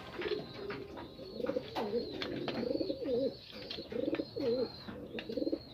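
Domestic pigeons cooing, a run of repeated warbling coos one after another, with a few sharp clicks in between.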